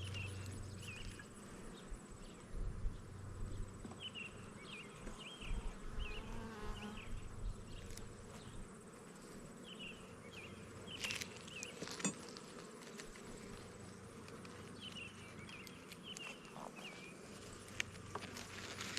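Honeybees buzzing around an open hive, with a couple of sharp clicks about 11 and 12 seconds in as a hive tool pries the first frame loose.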